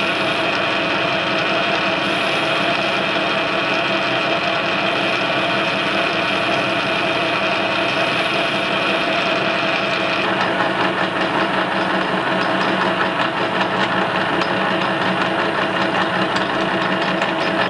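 Metal lathe running under power while a single-point threading tool cuts a thread on a steel shaft: a steady mechanical running with a constant whine, its tone changing about ten seconds in.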